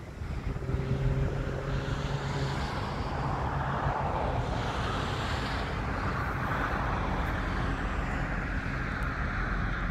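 Inland container ship passing close by, its diesel engine a steady low drone under a continuous rush of water and air noise.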